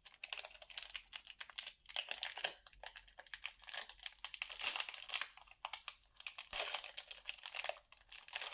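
Trading-card pack wrapper being torn open and crinkled by hand: irregular crackling and rustling in bursts with short pauses.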